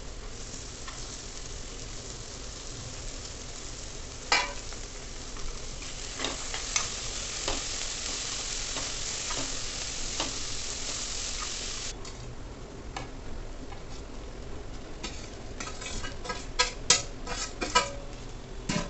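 Chopped vegetables sizzling in oil in a kadai while a steel spoon stirs them, scraping and clinking against the pan. The sizzle is strongest in the middle and drops off about two-thirds of the way through, followed by a quick run of spoon clinks and scrapes near the end.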